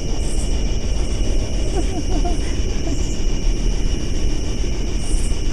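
Steady low rumbling background noise with faint steady high tones above it, and a brief faint murmur of a voice about two seconds in.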